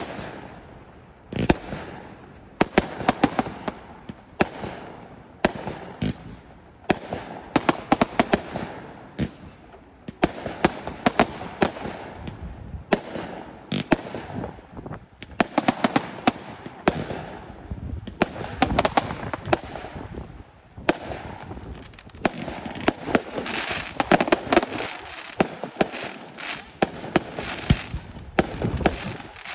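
Fireworks display: a continuous, rapid run of sharp bangs from bursting and launching shells, several a second, with a denser stretch about three quarters of the way through.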